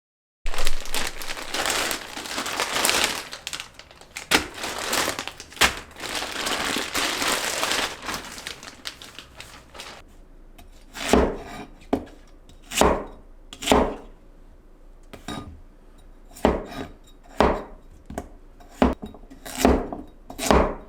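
Kitchen preparation sounds: a stretch of crinkling and rustling, like plastic packaging being handled, then a knife chopping on a cutting board in slow, separate strokes about a second apart.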